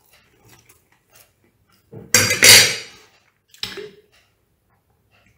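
A metal fork set down on a ceramic plate: two sharp clinks in quick succession about two seconds in, then a smaller knock a moment later.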